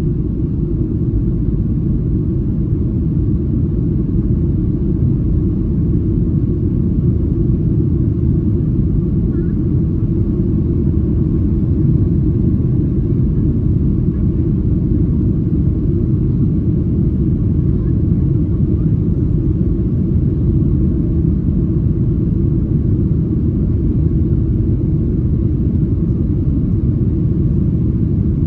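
Steady low rumble of a Boeing 737-700's CFM56-7B jet engines and airflow heard from inside the passenger cabin, level and unchanging throughout.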